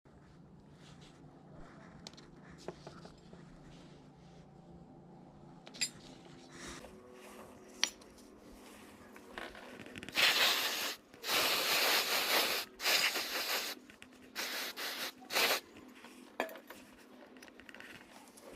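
A few sharp metallic clicks, then four or five loud bursts of hissing, scraping noise each lasting about a second.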